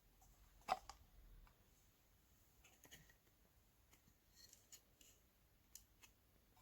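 Sparse small clicks and taps from handling speaker parts during reassembly, with one sharper click just under a second in; otherwise near silence.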